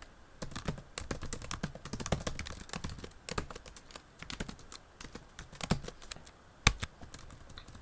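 Typing on a computer keyboard: quick, irregular keystrokes, with one louder key strike about two-thirds of the way through.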